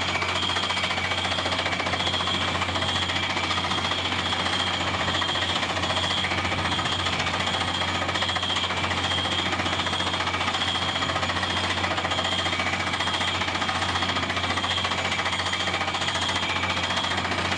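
Water well drilling rig drilling: a rapid, steady hammering over the constant low hum of its engine, with no change in pace.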